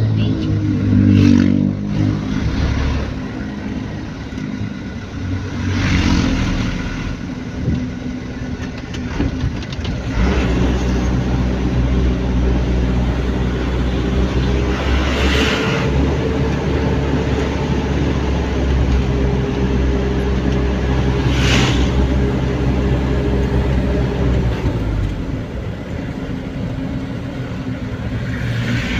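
Engine and road noise heard from inside a moving vehicle: a steady low engine hum, with a few brief rushes of noise.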